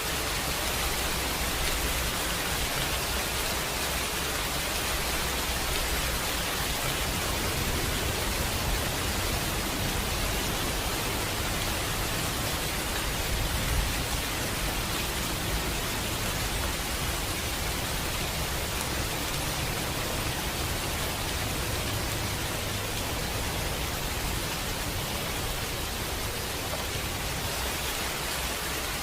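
Steady downpour of rain, an even hiss, with a low rumble of distant thunder that swells through the middle and then eases.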